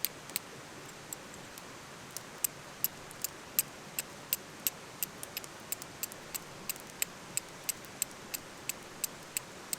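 Carbon steel striker struck again and again against a small piece of flint, a sharp click at each strike, about three a second.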